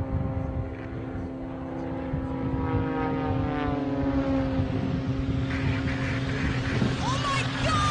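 Propeller-driven plane's engine droning overhead, its pitch gliding down a few seconds in.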